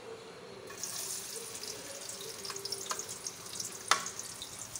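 Chopped onion sizzling and crackling in hot cooking oil in a kadhai, starting about a second in as the onion is dropped into the oil. A single sharp clink near the end.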